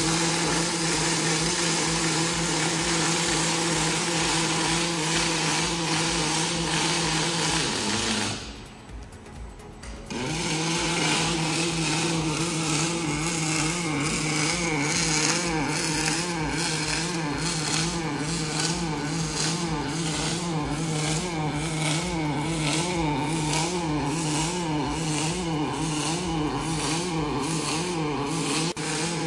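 Robotic arc welding: the welding arc on a Kawasaki welding robot's torch is running on steel, a steady crackling buzz with a hum beneath it. The arc stops about eight seconds in and strikes again about two seconds later, then runs on with a slightly wavering tone.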